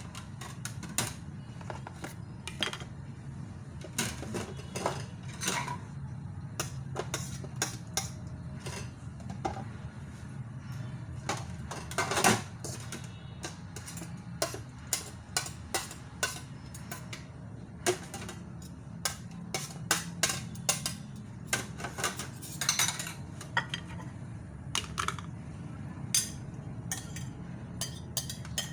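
Dishes and cutlery being handled: irregular clinks and knocks of plates, bowls and silverware over a steady low hum, with one louder clatter about twelve seconds in.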